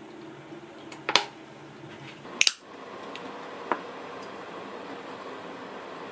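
Sharp clicks and clinks of a soy-sauce bottle, a beer can and a glass being handled at a table: a click about a second in, a loud double snap about two and a half seconds in, and a lighter click a little over a second later.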